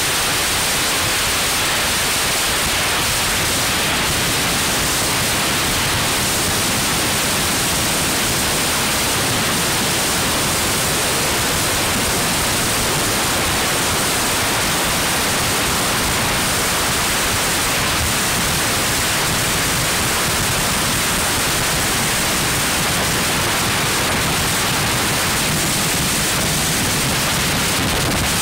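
Steady, even rushing noise of travel in a moving vehicle: wind and road noise on a phone microphone, with no change in level.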